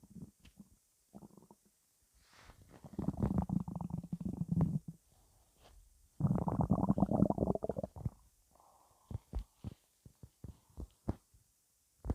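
A person's stomach rumbling: two long gurgles of two to three seconds each, then a run of short gurgling pops near the end.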